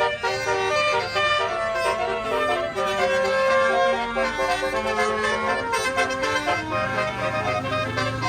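Tour bus's Basuri telolet horn playing a melody: several horn tones sound together and step from note to note.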